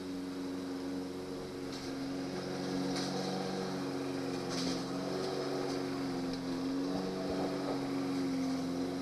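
A motor hums steadily, its pitch wavering slightly, with a few faint clicks of a screwdriver working on a metal door lock in the first half.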